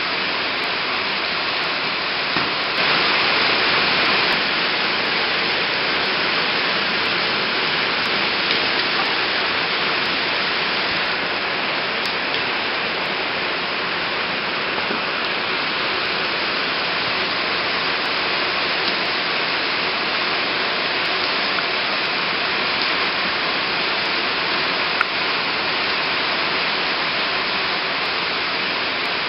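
Rain falling steadily, an even hiss that swells briefly about three seconds in.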